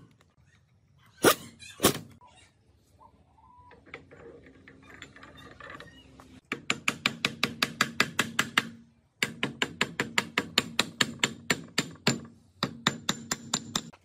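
Two sharp metal knocks, then an air impact driver running in three bursts of rapid hammering, about eight blows a second over a steady motor whine, as it drives the screws of a gearbox bearing retainer plate.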